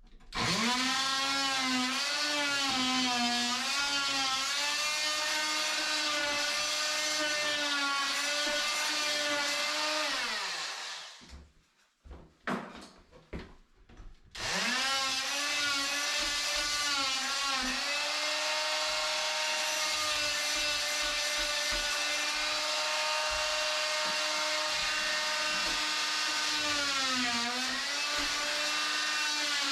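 Electric drill running in long steady stretches, its whine dipping in pitch now and then as it bogs under load. It stops for a few seconds about eleven seconds in, gives a few short blips, then runs again to the end.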